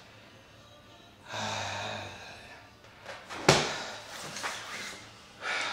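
A person breathing hard during a bodyweight workout, with loud exhales, and a single sharp thump about three and a half seconds in, followed by a few lighter knocks.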